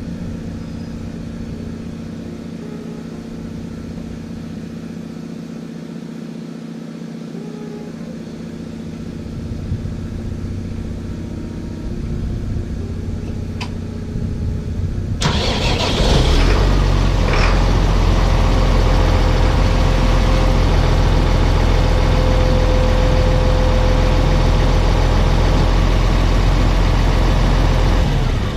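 An engine running steadily. About fifteen seconds in, a sudden much louder engine sound takes over as another engine starts or the throttle opens, and it runs loud and steady until near the end.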